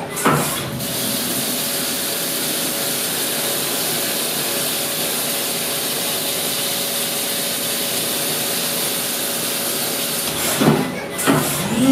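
Brother Speedio S700X1 CNC mill face-milling with an 80 mm, six-insert shell mill at 2100 rpm under flood coolant: a steady hiss of coolant spray over the running cut. A brief swooshing sweep comes just after the start and again near the end.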